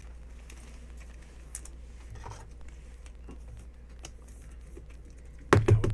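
Light plastic clicks and rustles of a trading card being slid into a rigid plastic top loader. A man's voice starts near the end.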